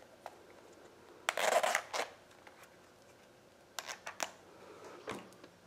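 Quiet handling of small objects: a brief rustle a little over a second in, then a few light clicks and taps later on as small items are picked up and set down.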